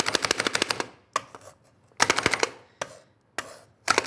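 Hand-operated food chopper chopping spinach: a fast run of rapid clicking from the spinning blades that stops about a second in, followed by several shorter bursts of clicking.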